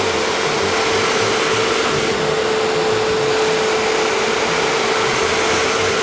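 Bissell SpotClean Pro Heat 3698V carpet spot cleaner running loud and steady, with a constant whine in its rush, as its hand tool is drawn across a rug.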